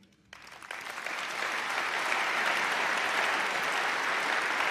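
Large audience applauding: the clapping starts just after the beginning, builds over the first second or so, then holds as steady applause.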